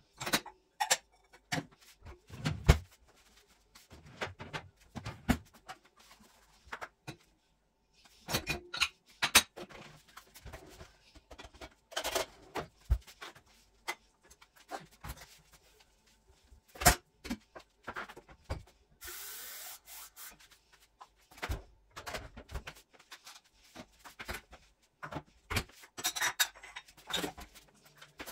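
Household cleaning sounds: scattered knocks and clatter of items being handled and set down, with rubbing, and a steady hiss lasting about a second past the middle.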